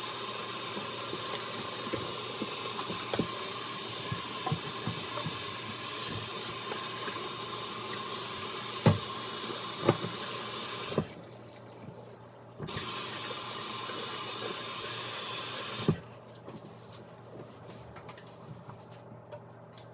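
Kitchen tap running into a sink while dishes are washed, with dishes clinking now and then. The water is shut off about eleven seconds in, turned back on briefly, then shut off again, leaving light clatter.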